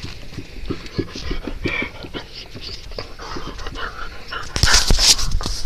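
A dog panting right up against the microphone in a run of quick breaths, with a louder breathy rush about four and a half seconds in as its muzzle comes close.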